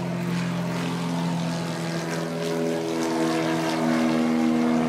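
Single-engine floatplane's piston engine and propeller at full takeoff power, a steady drone that grows louder as the plane lifts off the water.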